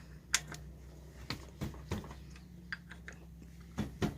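Scattered light clicks and knocks at an irregular pace, over a faint steady low hum.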